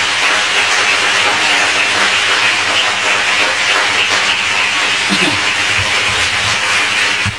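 Audience applauding steadily after the end of a recited poem, the applause cutting off near the end.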